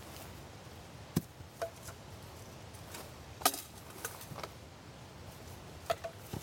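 Irregular sharp wooden knocks and clacks, about eight in all and loudest about three and a half seconds in: firewood being handled while a campfire is readied.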